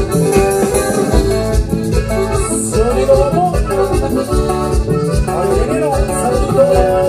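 Live Latin dance band music: an instrumental stretch between sung verses, with a melody over a steady bass and percussion beat.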